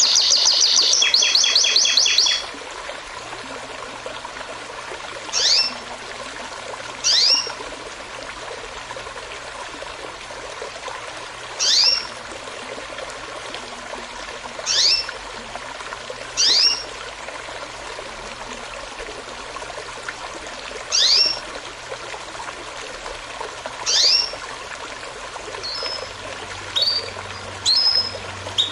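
A small stream runs steadily while songbirds call over it. A fast, loud run of repeated high notes fills the first two seconds; after that comes a short whistle that slides downward, repeated every few seconds, and quicker high notes near the end.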